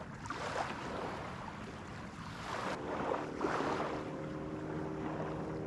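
Small waves lapping on a sandy shore, with light wind on the microphone. About halfway through, a steady low hum from a distant engine joins in.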